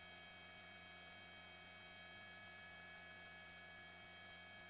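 Near silence, with a faint steady hum of several fixed tones.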